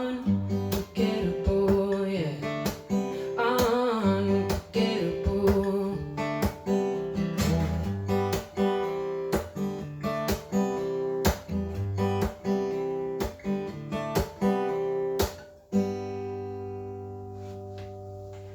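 Acoustic guitar strumming chords. About 16 seconds in, a last chord is struck and left to ring out and fade.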